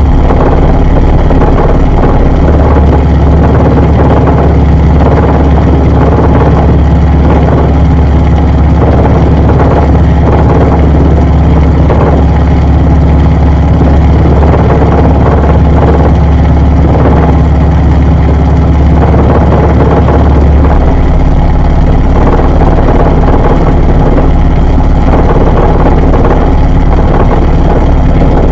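Washing machine running, heard from inside its drum: a loud, steady low hum with an uneven rushing noise over it. The lowest part of the hum changes about twenty seconds in.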